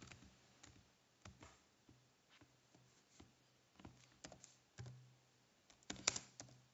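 Faint keystrokes on a computer keyboard: scattered single taps, then a quick run of several keys near the end.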